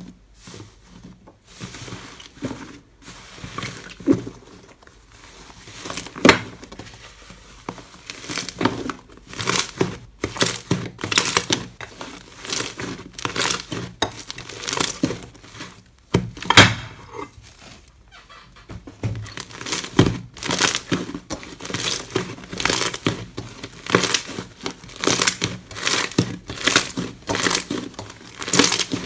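Slime being squeezed, stretched and pressed by hand. It makes a fast, irregular series of crackles and pops, some of them sharp and loud.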